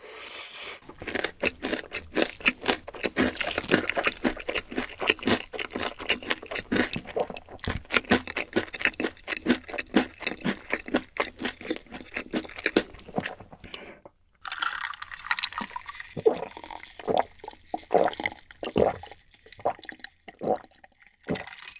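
Close-miked eating sounds: wet, crackling chewing with a dense run of small clicks, a short pause about fourteen seconds in, then slower, separate wet mouth clicks.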